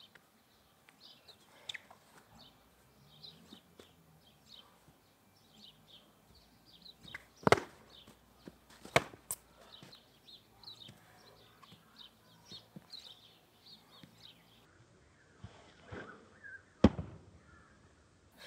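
Foam training sabres smacking together or onto a fencer in sparring: three sharp hits, two about a second and a half apart near the middle and one near the end. Small birds chirp throughout.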